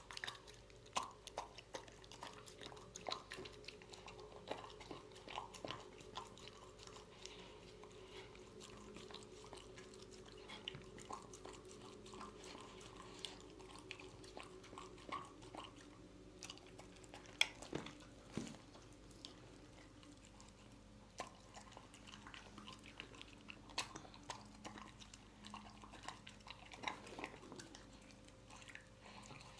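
A dog eating wet canned dog food from a ceramic bowl: soft wet chewing and licking, with frequent small clicks and crunches. The sharpest click comes about seventeen seconds in.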